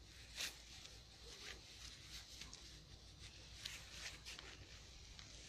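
Near silence: a low steady outdoor rumble with a few faint, short scuffs or rustles, the clearest about half a second in.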